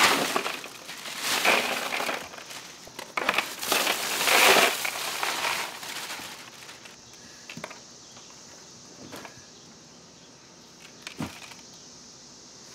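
Ice cubes pouring and rattling out of plastic bags into a plastic cooler over chicken carcasses, in several loud bursts over the first six seconds. After that, a few soft knocks as the carcasses are shifted about in the ice.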